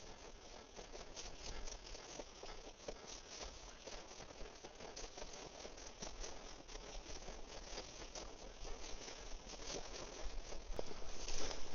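Footsteps and dense rustling crackle of someone pushing through dry grass cover, growing louder near the end.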